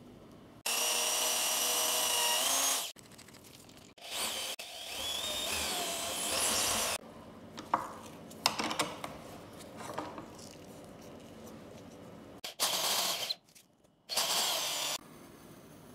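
Cordless drill spinning a sanding drum against a pine handle blank, running in four short bursts with a whine, two long ones and then two brief ones near the end. Between the bursts come scattered clicks and knocks of the workpiece being handled and clamped.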